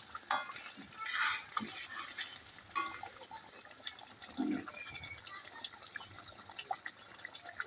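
A spoon scraping and clinking irregularly against a cooking pot as food is stirred.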